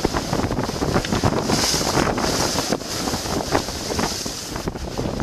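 Strong wind buffeting the microphone over the rush of storm waves breaking, rising and falling in gusts.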